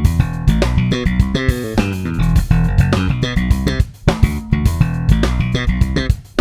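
Electric bass played through a Darkglass Microtubes 900 V2 bass amp head: a busy riff of short plucked notes, with brief stops about four seconds in and just before the end.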